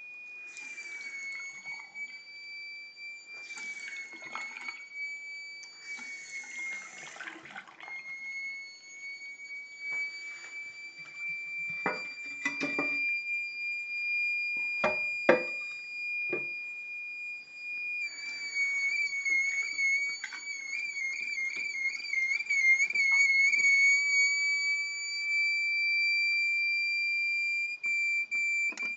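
Toilet tank fill valve whistling as the tank refills: one steady high-pitched tone with fainter overtones above it, which wavers and warbles for several seconds about two-thirds of the way through. Water hisses in bursts during the first several seconds, and a few sharp knocks come in the middle.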